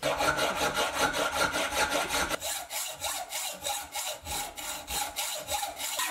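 Hand hacksaw cutting through a cold drawn steel round bar clamped in a vise, with a steady rhythm of back-and-forth strokes.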